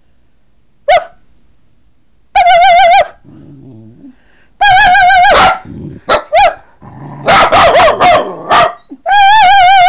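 A dog 'singing' on command: several long howls with a quavering, wobbling pitch, broken up by short yelps. The last howl slides down at the end.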